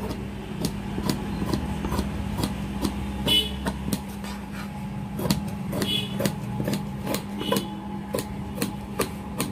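Large tailor's shears cutting a sleeve out of folded fabric: a run of crisp snips, about two or three a second, over a steady low hum.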